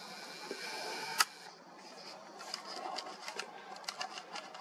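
Camera handling noise from filming by hand. A faint hiss is broken by one sharp click a little over a second in, followed by scattered light clicks and ticks.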